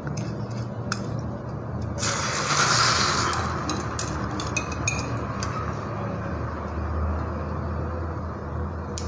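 Egg, potato and onion omelette mixture poured into a hot oiled frying pan, sizzling loudest about two to three seconds in and then dying down, with scattered clinks of a steel bowl and spatula against the pan.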